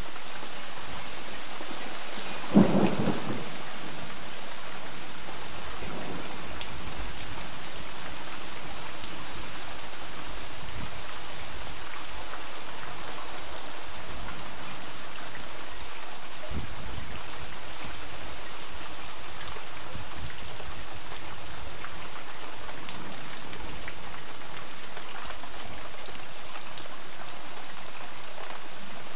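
Steady light rain falling and splashing on pavement and puddles, with one loud clap of thunder about three seconds in.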